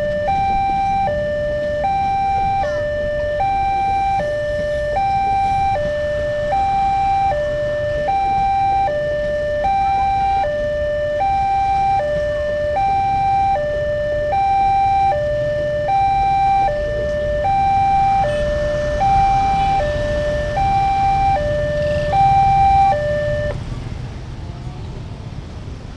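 Railway level-crossing warning siren sounding an electronic two-tone alarm, high and low notes alternating about once a second, over the low rumble of a passing passenger train. The siren stops about 23 seconds in as the train clears the crossing.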